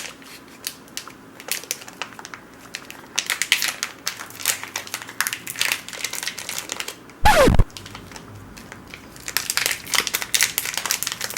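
Plastic snack-bar wrapper crinkling and crackling in bursts as someone tries, without success, to tear it open. About seven seconds in there is one short, loud sound that falls in pitch.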